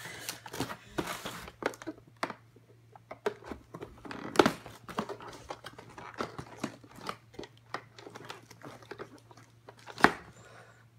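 Cardboard box and packaging rustling and crinkling as hands cut and pull at twist ties with a knife, with scattered small clicks and knocks. The two sharpest knocks come about four and ten seconds in.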